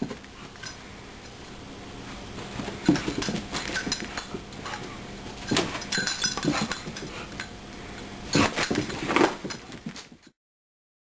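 Metal ID tags on a Catahoula mix dog's collar clinking irregularly, with a bell-like ring (the 'cowbell' sound), as the dog bounds around, with several louder knocks among them. It stops abruptly about ten seconds in.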